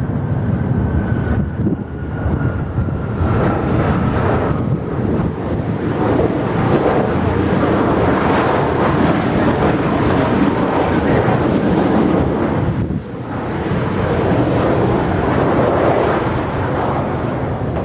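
Jet airliner engines roaring loudly as the aircraft passes, with a faint whine that slowly falls in pitch during the first few seconds. The roar dips briefly about thirteen seconds in, then carries on.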